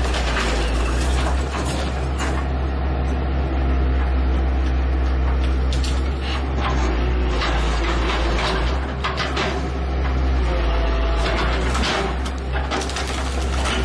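Daewoo hydraulic excavator's diesel engine running steadily as its bucket tears into a wood-frame house, with repeated cracks and crashes of splintering wood and falling debris.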